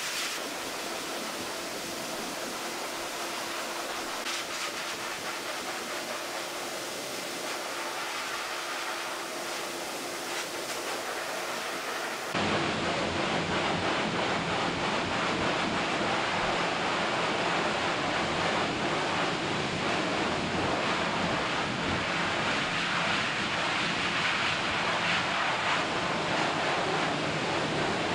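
High-velocity pet dryer blowing a steady rush of air through its hose nozzle, blowing out a heavily shedding double coat. It gets suddenly louder and fuller about twelve seconds in.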